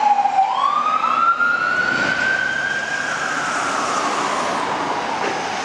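Fire truck siren in a slow wail: the pitch drops, climbs back over about two seconds, then slowly falls again, growing slightly fainter as the truck pulls away. Road traffic noise runs underneath.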